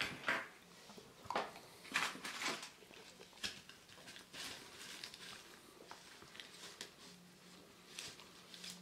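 Hands handling a hollow plastic egg-shaped sweet container and wrappers: irregular light rustles, taps and clicks, several sharper ones in the first few seconds, then softer.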